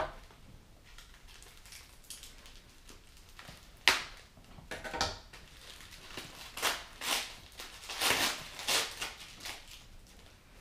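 Packing paper crinkling and rustling in irregular bursts as a small item is unwrapped by hand, with one sharp knock about four seconds in.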